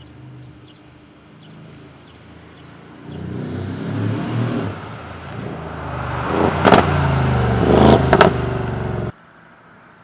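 Mercedes-AMG GLE 63's twin-turbo V8 accelerating as the SUV drives past, its engine note building and growing louder. Near the end come two sharp cracks about a second and a half apart, then the sound cuts off suddenly.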